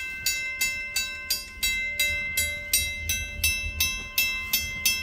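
Railroad grade-crossing warning bell ringing steadily, about three strikes a second, each strike ringing on with the same tones. A low rumble runs underneath.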